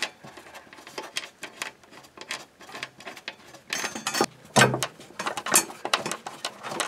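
Light metallic clicks and scrapes of a steel transmission crossmember and its bolts being handled and threaded in by hand, with a louder knock a little after halfway.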